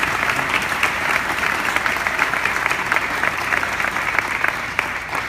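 Audience applauding, the clapping thinning out at the very end.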